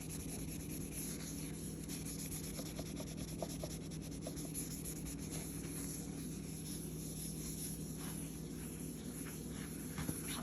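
Light rubbing and scraping at sticky tape residue on a chrome refrigerator door, with scattered faint ticks, over a steady low hum.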